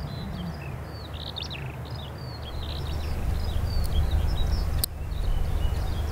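Small birds chirping over a low, distant jet rumble that swells about halfway through: the JF-17 Thunder fighter's single turbofan engine on landing approach. One sharp click about five seconds in.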